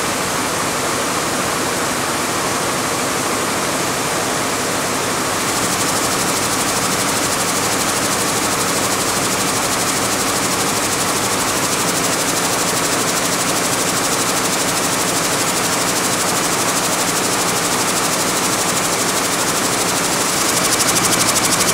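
A hall of Picanol weaving looms running together, a dense, steady mechanical din with a rapid clatter from the beating of the reeds. It grows a little louder near the end.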